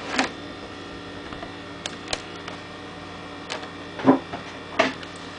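A cardboard model-kit box being opened and its plastic-bagged parts handled: a few short, light clicks and knocks over a steady faint background hum.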